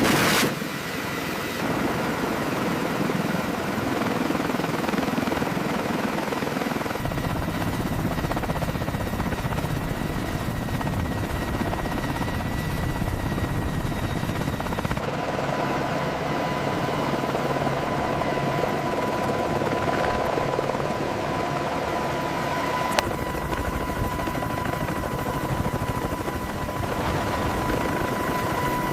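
AH-1 Cobra attack helicopter running: steady turbine whine and rotor noise, the sound shifting abruptly several times along the way.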